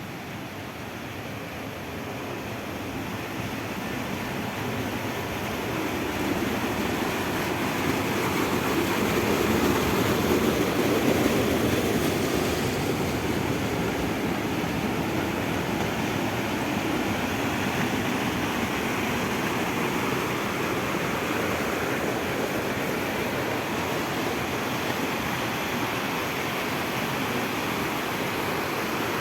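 Steady rushing noise, swelling to its loudest about ten seconds in and then holding steady.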